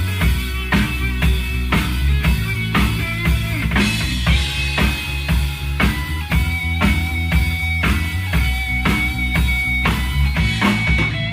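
Rock band playing live: drum kit keeping a steady beat, electric bass underneath and electric guitar holding sustained high notes, with no vocal line.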